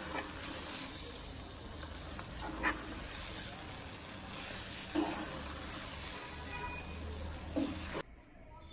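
Thick sweet potato halwa being stirred with a spoon in a kadai, under a steady hiss. Four short sharp sounds come about every two and a half seconds. The hiss stops abruptly about eight seconds in.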